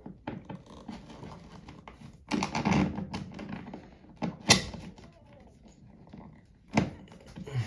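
Small metal clicks and rattles as spring toggle bolts, threaded through a metal wall hook, are fed into holes in drywall. There is a short rattling stretch a few seconds in, a sharp click about halfway through and another near the end.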